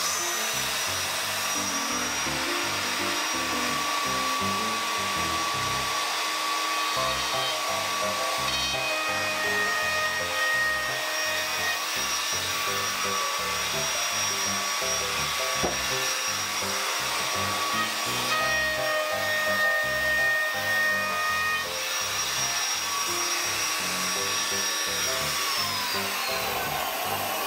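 Handheld wood router with a round-over bit running with a steady high whine while rounding over a board's edges, then winding down with a falling whine near the end. Background music with a steady beat plays underneath.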